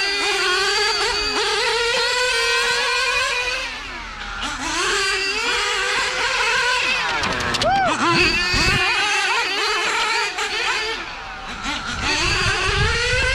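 Small nitro engines of two RC GT race cars, a Hot Bodies RGT8 and a Mugen MGT7, running at speed. They rev up and back off over and over, so the high, buzzing pitch keeps climbing and falling, with a quick drop in pitch about eight seconds in.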